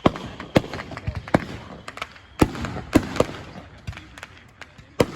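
Fireworks going off: an irregular string of sharp bangs and pops, sometimes several in a second, the loudest about two and a half and three seconds in.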